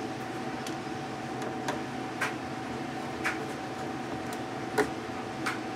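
Scattered light clicks and taps of a screwdriver and hands working on a plastic appliance housing, the sharpest about five seconds in, over a steady background hum with a faint steady tone.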